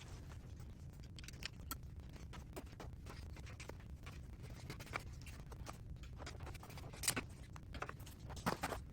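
Light scrapes and clicks of a unicycle tire being handled and worked off its rim, scattered and faint, with a few sharper clicks about seven seconds in and near the end.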